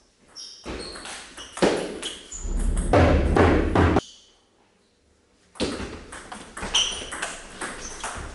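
Table tennis rallies: the ball ticks sharply off the rubber paddles and the table in quick strings of hits, mixed with dull thuds. The hitting breaks off about four seconds in and starts again after a second and a half of near silence.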